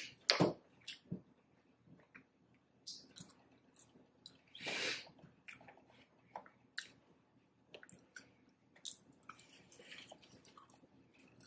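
Close-miked chewing of food, with soft mouth clicks and smacks, and one longer, louder noisy sound a little under five seconds in.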